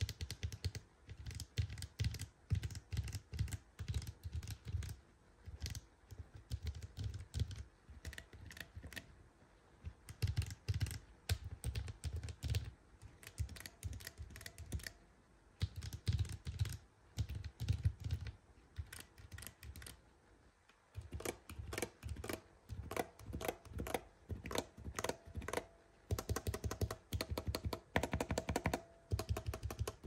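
Typing on a FEKKER F84T mechanical keyboard, damped with foam and compound, fitted with Ajazz Banana tactile switches: quick runs of keystrokes in bursts with short gaps. About 20 seconds in, the typing stops briefly, then resumes with a thinner, clickier sound on another set of switches.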